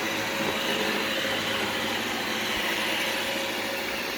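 iRobot Roomba 691 robot vacuum running steadily on carpet: the even whir of its vacuum motor and brushes.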